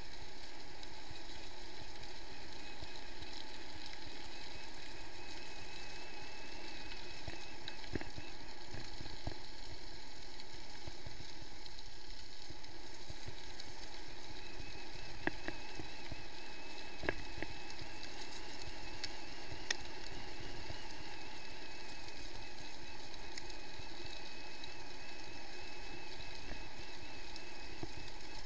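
Mountain bike rolling downhill on a gravel forest track, heard from a bike-mounted camera: a steady noise of tyres on gravel and the bike rattling, with a few sharp knocks as it goes over bumps.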